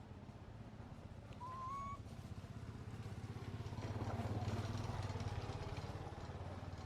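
A small engine running with a fast, even pulse, growing louder to its peak about four seconds in and then easing off. A brief high chirp sounds about a second and a half in.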